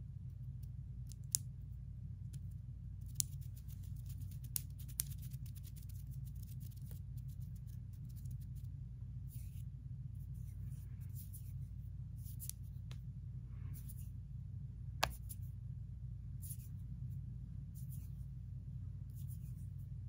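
Long acrylic nails clicking and tapping together, with soft swishes of hands moving close to the microphone, over a steady low hum. There are a few sharp single clicks, a quick run of clicks a few seconds in, and mostly swishing in the second half.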